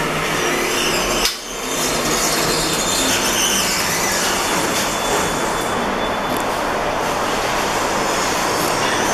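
Lift stopping with a clunk about a second in, its doors opening, then a wheelchair rolling out across a tiled floor, all under a steady rushing noise.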